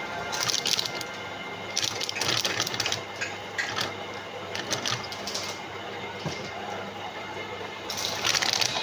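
Coconut-peeling machine running with a steady hum, broken by irregular bursts of rattling and scraping as it works a coconut.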